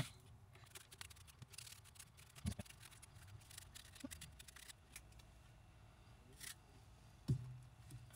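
Apples being peeled by hand with a small blade: faint scraping and cutting clicks of the blade through the skin, with two soft knocks, about two and a half seconds in and near the end.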